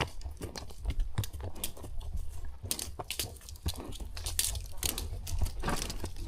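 A horse on a dirt trail, making irregular crunching and crackling sounds with no steady beat, over a constant low rumble.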